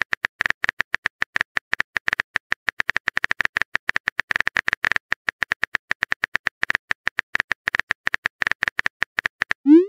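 Rapid, slightly irregular keyboard-tap clicks, about ten a second: the typing sound effect of a texting-story chat app as a message is typed out. Just before the end, a short rising blip begins: the message-sent sound.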